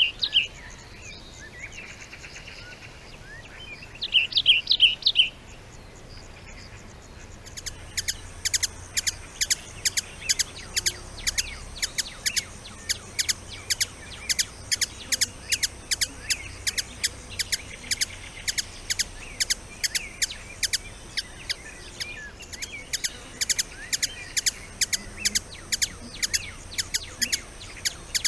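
Wild birds singing: a short high trilled phrase near the start and again about four seconds in, then a long run of sharp, even chirps repeated about twice a second.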